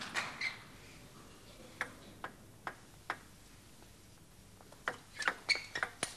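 Table tennis ball clicking: a few separate ticks of the ball in the quiet between points, then from about five seconds in a quick run of crisp hits as the serve is played and the ball strikes bats and table in a rally.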